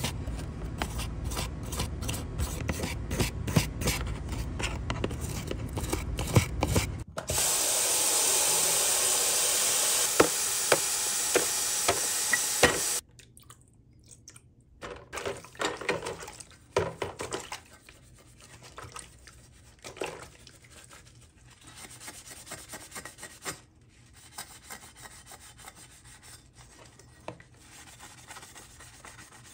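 Small brush scrubbing softened, stripped paint off a diecast model truck body, about three strokes a second. Then water runs in a loud steady hiss for about six seconds and cuts off suddenly, followed by quieter splashing and rubbing as the body is washed with a sponge.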